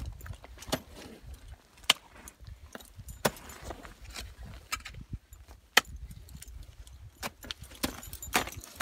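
Ice axes and crampons biting into waterfall ice: about seven sharp strikes, roughly one a second, as the climber swings the tools and kicks in. Metal climbing gear on the harness clinks between the strikes.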